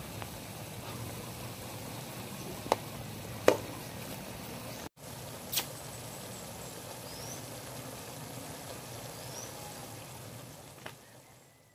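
Chicken liver adobo simmering in a wok: a steady bubbling hiss of the reducing sauce, with a few sharp pops. It fades out near the end.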